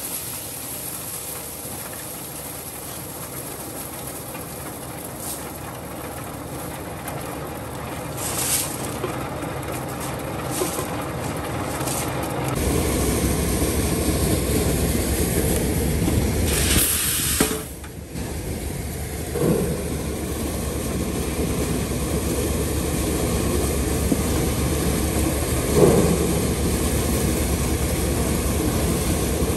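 Tractor-powered maize sheller running steadily while shelled kernels pour out. About twelve seconds in, the sound becomes louder and deeper, with a steady low engine drone.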